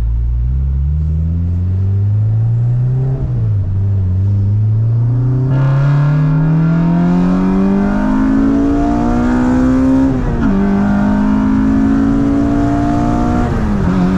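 K24 four-cylinder engine of an Acura RSX breathing through an HKS Hi Power exhaust, accelerating through the gears. The revs climb, drop at an upshift about three seconds in, climb again through a long pull, and drop at another upshift about ten seconds in before holding steady.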